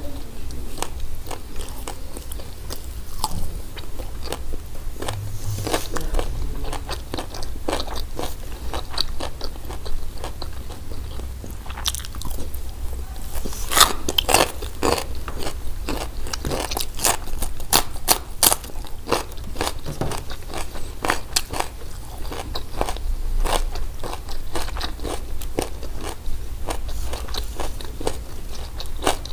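Close-up crunching and chewing of crispy hawawshi, baked flatbread stuffed with spiced meat, the crust crackling with each bite. The loudest crunches come in a run about halfway through, as a fresh bite is taken.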